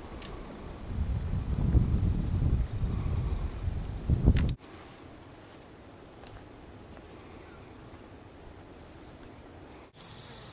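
Steady high-pitched insect chirring with a low rumble beneath it. About halfway through it drops abruptly to a faint, quiet background, and the insect sound returns near the end.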